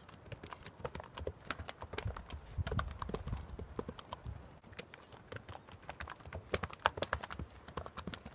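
Hoofbeats of a horse being ridden over turf and dirt: a run of irregular dull thuds and sharp clicks.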